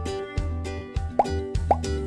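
Light background music over a repeating bass note, with two short rising 'bloop' pops in the second half.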